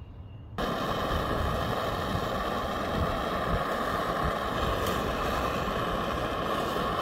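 Handheld propane torch burning with a steady rushing hiss as it heats a copper pipe joint for soldering. The flame noise starts abruptly about half a second in and holds steady.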